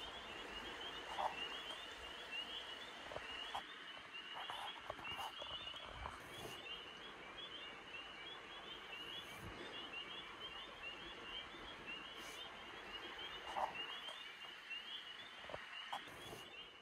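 Night chorus of spring peepers: a dense, steady mass of high peeping frog calls. A few faint clicks come now and then.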